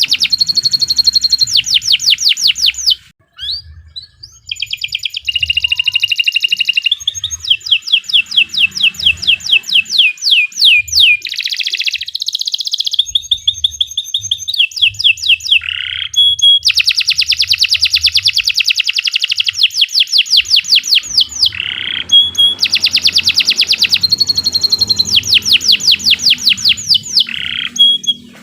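Domestic canary singing a long, loud song of rapid trills and repeated high notes, with a short break about three seconds in.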